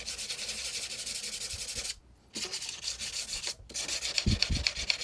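Sandpaper wet-sanding a steel bicycle disc brake rotor with isopropyl alcohol, in quick, even scrubbing strokes that scour off rust and grime. The scrubbing breaks off briefly twice, about two seconds in and again a second and a half later.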